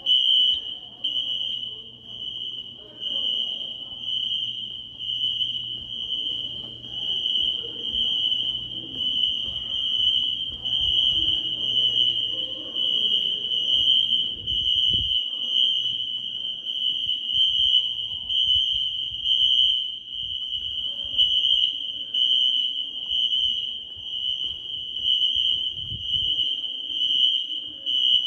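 Wheelock NS electronic fire alarm horns sounding during an alarm test. The horn gives a loud, high-pitched tone, broken by short gaps about once a second.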